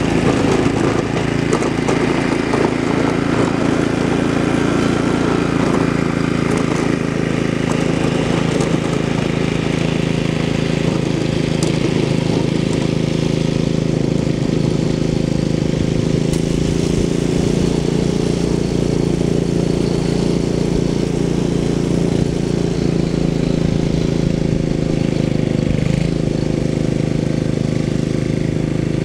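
Ariens Sno-Thro snow blower's 5-horsepower Tecumseh Snow King single-cylinder engine running steadily under load as it throws packed snow. The engine note dips briefly near the end.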